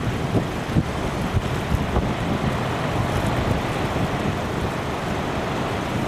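Strong gusty wind buffeting the microphone over the steady rush of heavy storm surf breaking on rocks.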